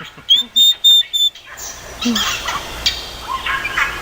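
A parrot whistling four short, clear high notes in quick succession, followed by softer voice-like chatter.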